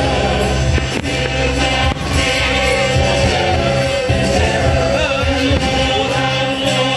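Band and choir music with singing over a steady bass line.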